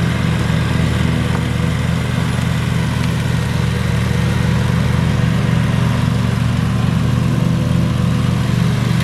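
Lawn mower engine running steadily and loudly at an unchanging speed.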